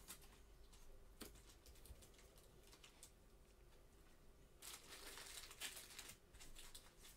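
Near silence with faint handling of trading cards: a few soft clicks and a brief rustle of cards shuffled in the hands in the second half.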